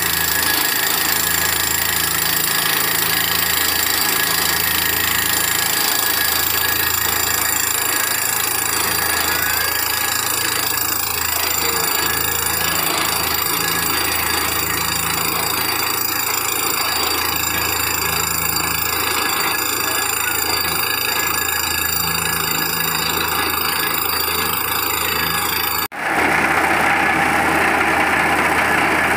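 Borewell drilling rig running: a steady, loud engine drone with a slow low throb. Near the end it drops out for an instant and comes back sounding different.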